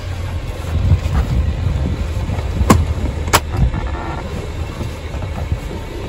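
Britax Boulevard ClickTight car seat's ClickTight mechanism clicking shut under the press of a knee: two sharp clicks a little over half a second apart, near the middle, the sound that signals the seat is installed tight. A low rumble runs underneath.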